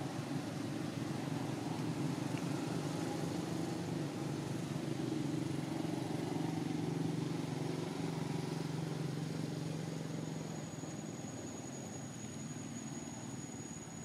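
A steady low engine hum, strongest in the middle and fading from about ten seconds in. A thin, high insect buzz starts around the same time.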